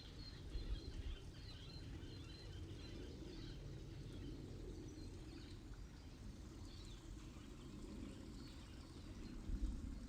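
Wild birds chirping and twittering in short high notes, busiest in the first few seconds, over a low steady outdoor rumble of breeze and water.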